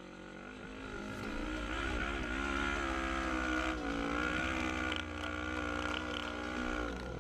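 Sport quad (ATV) engine under throttle while riding, its pitch rising and falling with the throttle in the first few seconds, then holding steady, and dropping off near the end.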